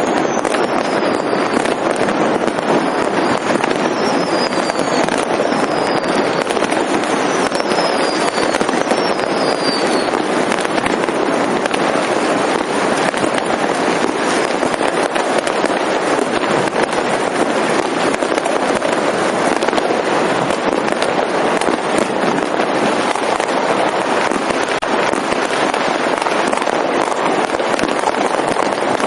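Many fireworks and firecrackers going off at once, a dense, unbroken crackle of bangs. Over the first ten seconds or so there is a run of short high whistles, each falling in pitch.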